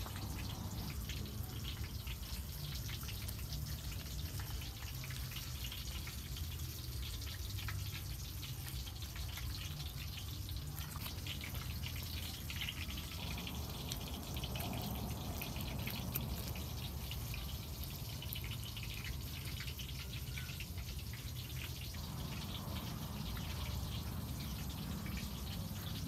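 Steady low background rumble with faint scattered small clicks and ticks.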